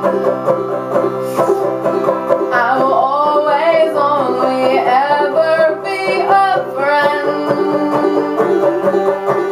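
Banjo strummed steadily in a folk punk song, with a woman's voice singing a line in the middle that slides up and down in pitch.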